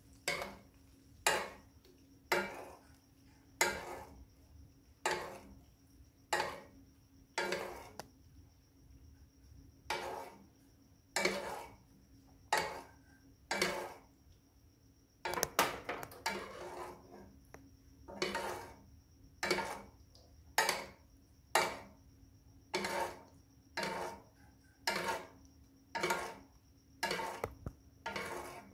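Metal spoon scooping and scraping against a frying pan about once a second, basting chicken thighs with melted butter and oil.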